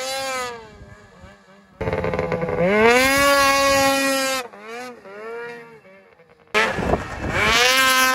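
Snowmobile engines revving hard as the sleds are stood up on their tracks in wheelies, the pitch climbing under full throttle and falling as the throttle is eased, with a few short throttle blips. The sound cuts off and starts again abruptly at the edits between clips, about two seconds in and again near the end.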